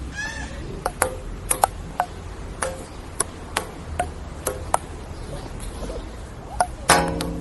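Table tennis ball clicking back and forth in a rally, struck by paddles and bouncing on the table, at uneven intervals of about half a second. Near the end a louder sustained pitched sound comes in.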